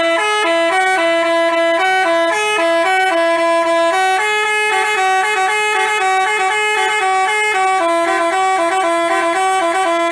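Basuri telolet bus horn, a multi-tone horn, playing a continuous tune of short stepped notes that hop up and down in pitch.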